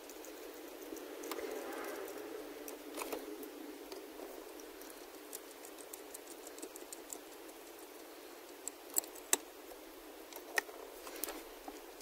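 Faint small metal clicks and rattles of shifter bolts and parts being handled, with a rustling stretch in the first few seconds and a few sharp clicks near the end.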